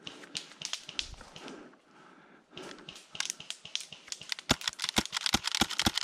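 Airsoft pistol fired in quick succession: a few scattered clicks, then from about two and a half seconds in a fast run of sharp clacks that grow louder, about five a second near the end, as the pistol runs out of BBs.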